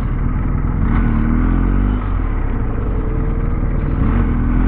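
Motorcycle engine running under way at town speed, its pitch rising and falling as the throttle changes.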